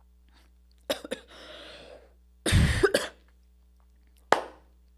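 A woman coughing: a sharp intake of breath about a second in, then one short, loud cough a little before the three-second mark. A single sharp click follows near the end.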